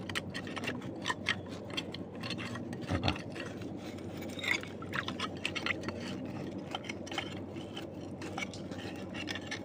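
Scraping in wet mud with many scattered, irregular clicks, as a mud crab burrow under a tree root is dug out by hand.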